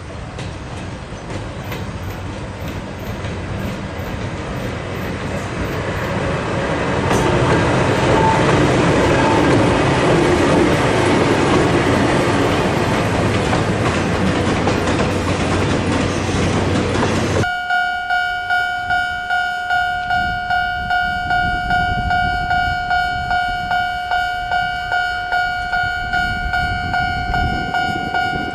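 An electric-locomotive-hauled passenger train runs past: a rising rush of wheels on rails that peaks about eight to twelve seconds in. About seventeen seconds in it cuts suddenly to a level-crossing warning bell ringing steadily, about two strikes a second.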